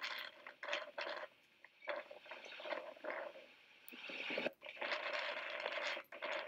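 Kīlauea's Halemaʻumaʻu lava lake with its surface churning, an irregular run of splashing, crackling noise, heard played back through computer speakers.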